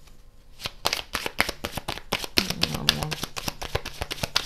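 A deck of tarot cards being shuffled by hand: a quick run of papery flicks and slaps that starts about a second in and keeps going.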